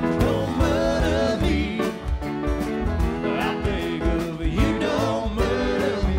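Live band playing a country-bluegrass tune with acoustic guitars, banjo, fiddle, bass guitar and drums, and a man singing.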